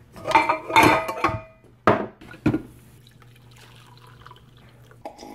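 Pots and dishes clattering on a kitchen counter as a nonstick pan is shifted, with ringing clanks, then two sharp knocks. After that, coffee pours faintly from a glass carafe into a ceramic mug.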